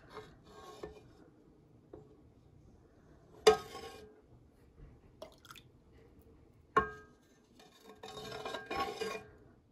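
Metal ladle knocking against the side of a large metal pot twice with a short ringing, plus smaller clicks and scrapes, while chili oil is skimmed off the top of birria consommé. A soft stretch of liquid being scooped and poured comes near the end.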